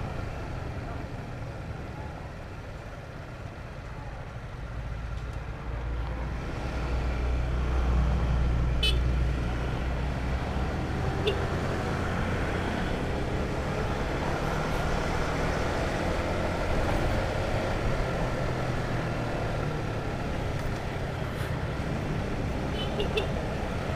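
Honda CBR150R motorcycle riding along a road, its engine running steadily under wind and traffic noise; the low engine sound swells about six to nine seconds in, then settles.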